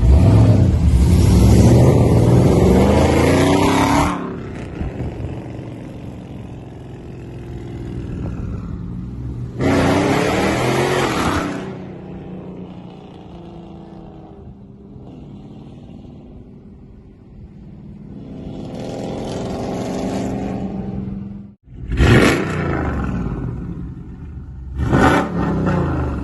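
Dodge Charger R/T's Hemi V8, running through long-tube headers, catless mid-pipes and deleted mufflers, accelerating hard several times, with the exhaust rising in pitch on each pull. A long pull opens it, and two short sharp blips of the throttle come near the end. Between the pulls the engine runs at a lower, steady note. The exhaust is really loud.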